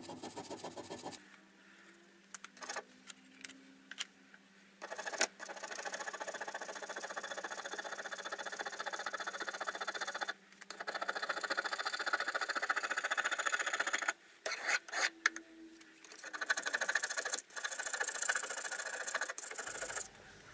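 Hand-finishing of the metal tailstand for a Gingery milling machine: three long stretches of steady rasping rubbing, each a few seconds long, with short pauses and scattered clicks between them.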